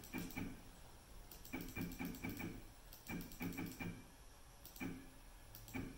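Soft clicks in small clusters, a few clicks at a time with pauses between, as a CNC router's X axis is jogged toward the edge of the board in 0.01-inch steps with the bit turned by hand to feel for contact.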